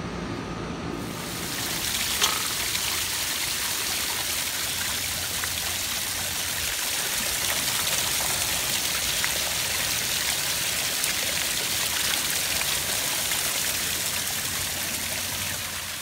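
Water from a newly built pondless waterfall splashing down a pond liner onto river rock on its first test run. A steady rushing splash starts about a second in.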